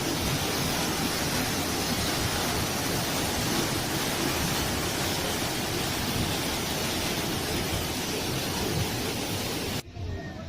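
Waterfall: a steady, loud rush of falling water that cuts off suddenly near the end.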